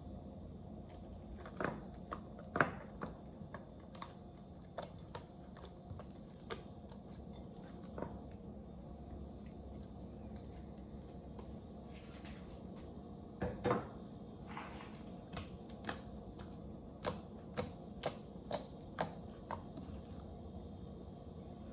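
Sticky glue slime being stirred and worked, making irregular sharp clicks and pops, more frequent in the second half.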